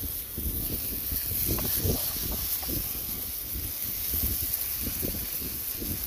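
Steak and onions sizzling in a frying pan, a steady hiss, with an uneven low rumble underneath.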